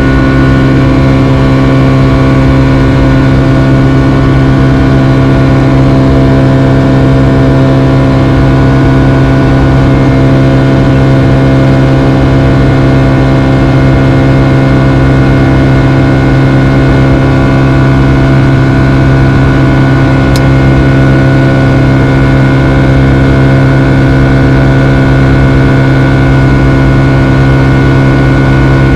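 Steady jet-engine drone of a Boeing 757-200 heard inside the passenger cabin in flight: a loud constant hum with several steady whining tones above it. There is a faint tick about twenty seconds in.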